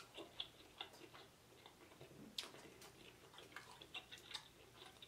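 Near silence with faint, irregular small clicks from eating lobster: mouth sounds and fingers working the meat in a dish of sauce.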